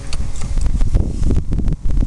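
Hyosung GT125's 125 cc V-twin engine idling through a Takkoni sport exhaust with the dB killer removed, a fast, uneven low pulsing.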